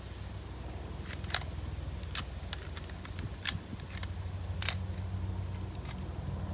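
Sharp plastic clicks, about seven or eight at uneven intervals, from a Lego toy pistol being handled, over a steady low hum.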